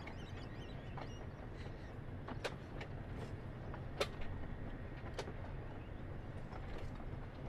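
Loaded sugar cane bins of a narrow-gauge cane train rolling past: a steady low rumble of wheels on rail with a few sharp metallic clanks, the loudest about four seconds in.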